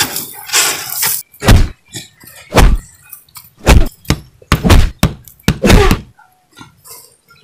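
Heavy punch impacts, the kind of dubbed fight-scene hit effects used in action films: about seven thuds in a row, about one a second at first and then quicker, stopping a little after six seconds in.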